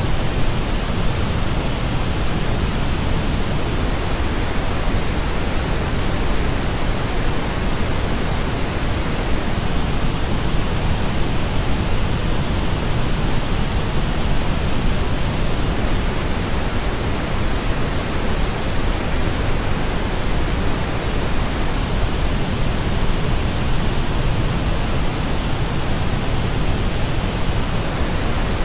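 Steady pink noise test signal. It switches every six seconds or so between the original reference and the same noise shaped by the Dan Clark Audio Expanse headphones' frequency response, and in alternate stretches the highest treble is noticeably weaker.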